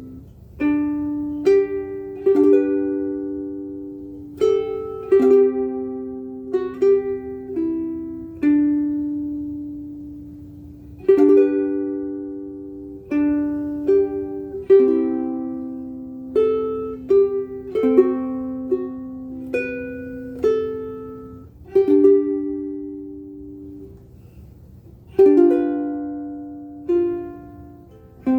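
Oli L2-CRR ukulele with Oasis Warm strings, played solo as a slow melody of plucked notes and chords. The notes ring and die away between phrases.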